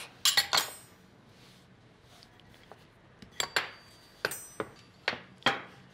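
Light metallic clinks and knocks on a countertop from a metal dough scraper being handled, a pair right at the start and more a little past halfway, with soft pats of hands shaping cracker dough between them.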